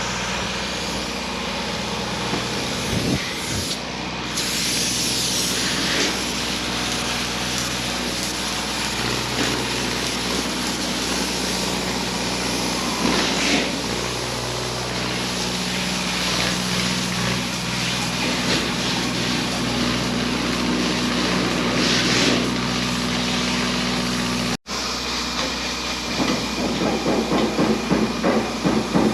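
Spray foam insulation rig running with a steady engine hum, with several spells of hissing from the spray gun. Near the end, after a brief break, rapid irregular knocking.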